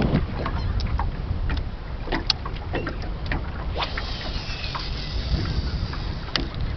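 Wind buffeting the microphone on a small open boat, a steady low rumble, with scattered light clicks and knocks throughout.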